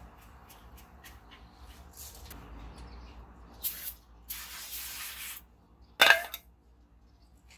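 Aerosol can spraying in two hisses, a short one about three and a half seconds in and a longer one of about a second right after, with a rag rubbing over the new brake rotor. A brief, louder rasp follows about six seconds in.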